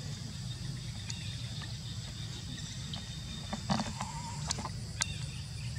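Outdoor ambience: a steady low rumble under a steady high insect drone, with a few sharp clicks and a short wavering call a little past halfway.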